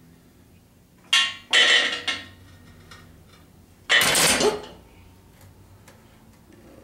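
Metal clanking and rattling from an engine hoist and its chain as a hanging V8 engine is shifted, in three short bursts about a second, two seconds and four seconds in.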